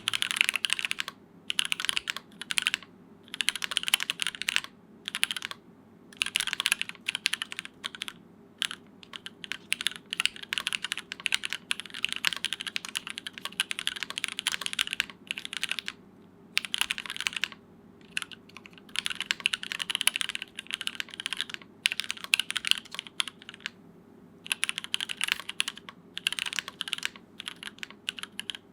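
Typing on a Nika SE custom keyboard with a polycarbonate plate, vintage Cherry MX Black linear switches and GMK Sandstorm keycaps. The keystrokes come in quick runs of a second or two, with short pauses between them.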